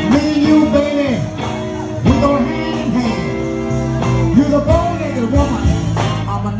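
Live blues band playing, electric guitar and bass over drums, with a man singing into a microphone.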